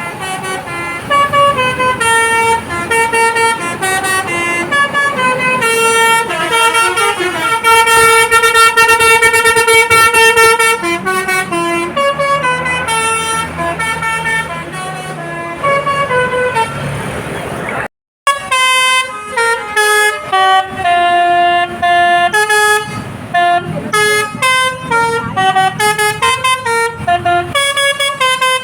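Basuri multi-tone telolet bus horn playing a melody, its notes stepping up and down in quick succession. It cuts out for a moment about eighteen seconds in, then plays on with another run of notes.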